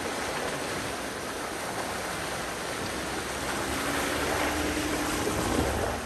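Jeep Gladiator Mojave on a dirt trail: a steady rushing noise of tyres and wind, with a faint engine hum coming in about halfway through.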